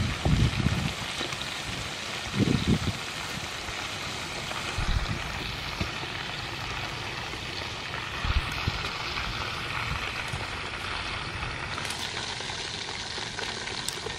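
Stuffed squid deep-frying in a wok of hot oil: a steady sizzle and bubbling, with a few dull low thumps, the loudest near the start and about two and a half seconds in.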